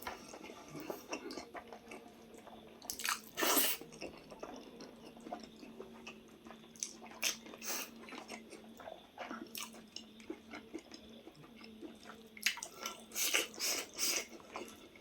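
A person chewing and biting food in irregular clusters of short, crackly mouth sounds, louder about three seconds in and again near the end.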